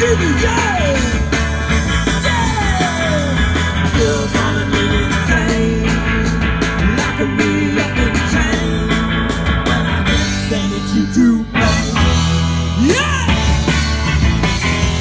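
Live rock band playing: a steady beat and bass with gliding notes over them, breaking off briefly about eleven and a half seconds in.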